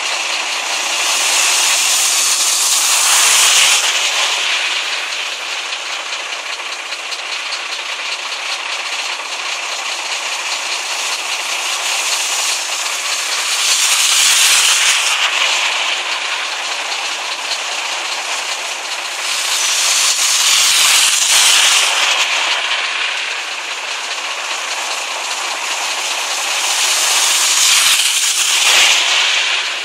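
Cars driving through floodwater on a road, one after another: four passes, each a swelling hiss and splash of tyres through standing water that rises and fades over two or three seconds, over a steady background hiss.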